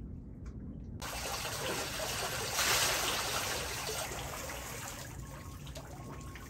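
Water trickling and splashing, a steady hiss that comes in about a second in, swells briefly and then eases off.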